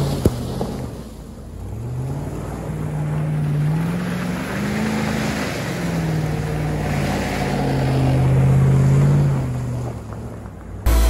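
Hummer H2's V8 engine driving through mud, its note rising and falling with the throttle, with wind noise on the microphone. A short sharp knock just after the start, and music with a heavy beat cuts in abruptly near the end.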